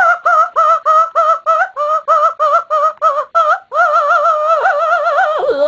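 High-pitched warbling electronic-style sound effect: a quick run of short wavering notes, about three a second, that runs into one continuous warble from a little past halfway.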